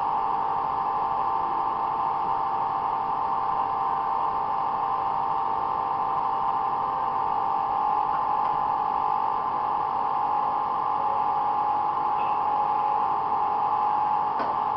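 Steady machine drone with a constant mid-pitched whine that does not change in level.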